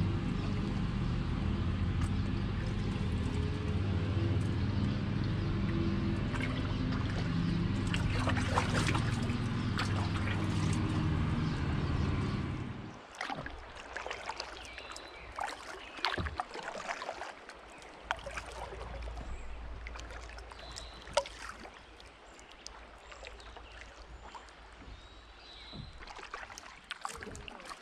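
A low, steady drone of several held tones for the first half, which cuts off suddenly about thirteen seconds in. After that, a kayak paddle drips and splashes lightly with each stroke, along with the trickle of moving water.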